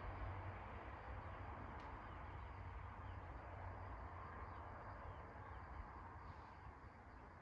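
Faint outdoor background: a steady low rumble and hiss, with a few faint distant chirps and one faint click about two seconds in.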